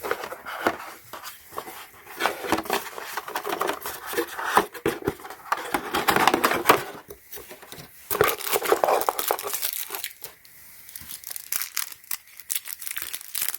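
Plastic packaging crinkling and rustling as it is handled and pulled open, in several crackly bursts.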